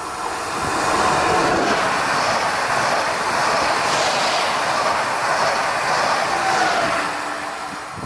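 PKP Intercity ED160 (Stadler FLIRT) electric multiple unit passing at speed: a rush of wheels on rail that builds as it approaches, holds for several seconds with a regular beat from the wheelsets, then eases off as the train goes by.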